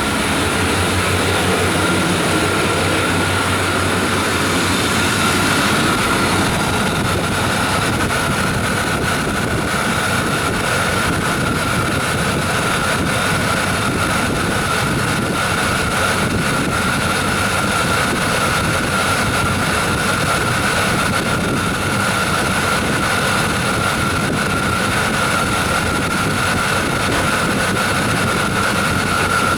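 1994 Chevy Silverado's 350 TBI V8 running steadily, a rushing engine noise with a steady high whine over it. The owner suspects the engine is running rich.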